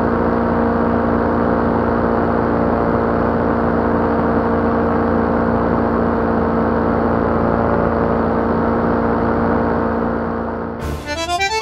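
Paramotor engine and propeller running steadily in flight, with an abnormal noise that the pilot traced to the speed-bar line's hook striking the propeller. Accordion music comes in near the end.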